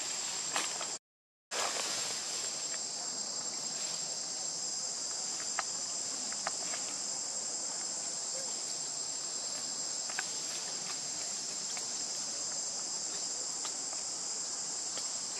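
Steady high-pitched drone of an insect chorus, with a few faint scattered clicks. The sound cuts out completely for about half a second, about a second in.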